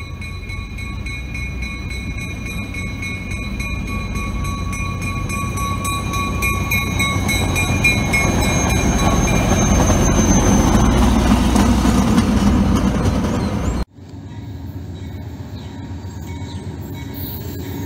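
Self-propelled Sperry rail-flaw detection car passing close by. Its rumble builds to its loudest just before the end of its pass, with steady high-pitched tones that fade out about ten seconds in. After a sudden cut, a quieter rumble follows from an Amtrak train approaching in the distance.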